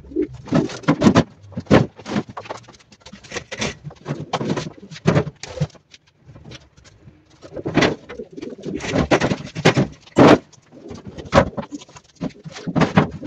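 Domestic pigeons cooing repeatedly in a loft, mixed with short knocks and scrapes as cardboard nest boxes are handled on wooden shelves.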